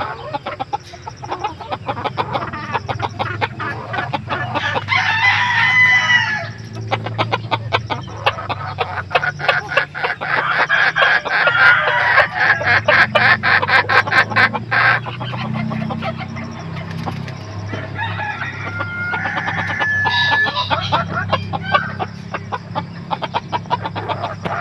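Backyard chickens clucking, with crowing calls about five seconds in and again near eighteen seconds. In the middle there is a long run of rapid flapping clicks from fantail pigeons beating their wings.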